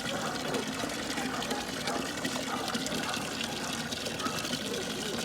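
Water running steadily into a cattle water trough, splashing and bubbling as it fills.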